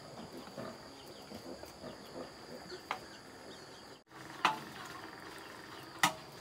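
Firewood being shifted on a wood-fire hearth, with sharp knocks of sticks about three, four and a half and six seconds in, the last the loudest. Faint low grunting of pigs sounds in the background.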